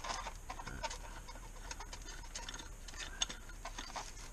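Irregular small clicks and scrapes of hands working a CO2 airsoft magazine, closing the removable base over its capsule compartment, with one sharper click about three seconds in.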